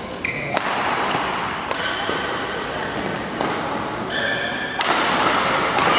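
Badminton rackets striking the shuttlecock in a fast doubles rally: four sharp hits a second or more apart, with short high squeaks in between and a murmuring crowd behind.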